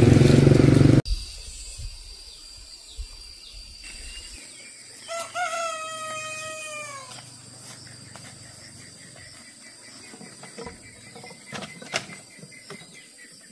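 A loud rumbling noise cuts off abruptly about a second in. Then a rooster crows once: a single long call of about two seconds that drops in pitch at the end, over a quiet background.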